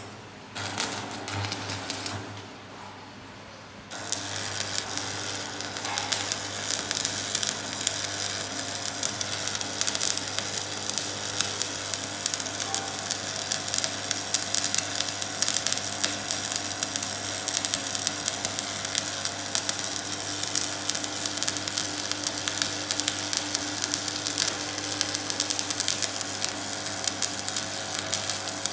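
Electric arc welding: the arc strikes about four seconds in and then crackles and sizzles steadily, a dense run of fine clicks over a steady low electrical hum.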